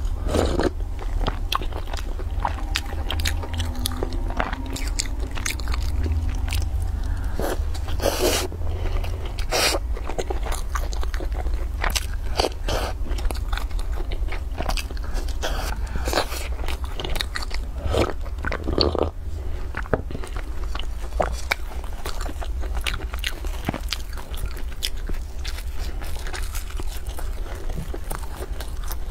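Close-miked chewing and biting of a sugar-coated twisted bread roll, many small crunching clicks from the crust coming irregularly, over a steady low hum.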